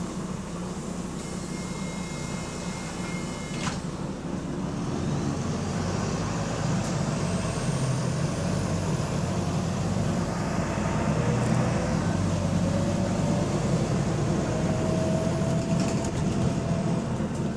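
Diesel engine of a double-decker bus pulling away and accelerating, growing louder over several seconds with a faint rising whine; the bus has a slight exhaust leak.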